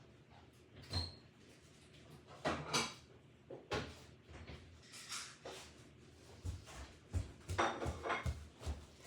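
Scattered handling noises: several brief rustles and light knocks, then a run of soft thumps in the last few seconds.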